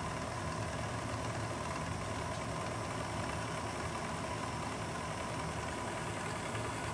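Sewing machine running steadily at speed, stitching free-motion quilting with a darning foot; a continuous motor hum with a thin steady whine.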